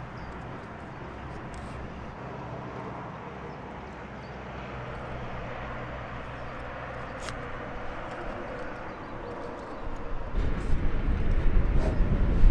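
A steady low engine drone in the background, with faint small clicks. About ten seconds in it gives way to a louder, uneven low rumble of wind buffeting the microphone.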